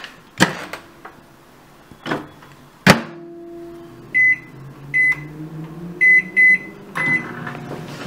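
Emerson microwave oven being set and started: a few sharp clicks, the loudest about three seconds in, then five short high keypad beeps over the next three seconds. The oven then starts running with a steady hum.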